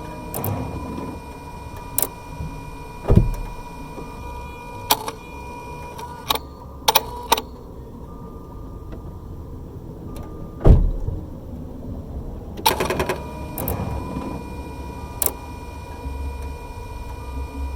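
Car ignition system clicking as the key is turned to position I before cranking: scattered sharp clicks and a quick burst of rapid clicks about 13 seconds in, with two dull thumps, over a faint steady whine. The cause of the clicking is unknown to the owner.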